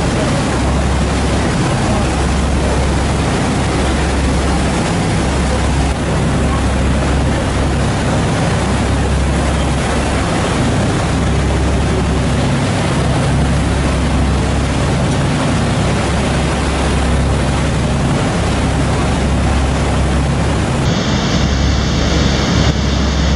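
Tour boat under way: its engine running with a steady low drone, the wake churning and rushing at the stern, and wind buffeting the microphone.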